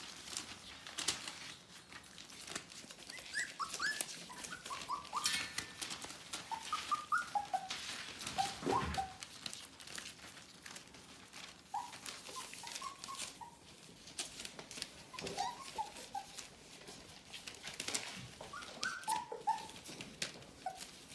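A litter of Border Collie puppies, nearly four weeks old, whimpering and squeaking in many short, high yips scattered throughout, with paws scratching and rustling the newspaper on the pen floor.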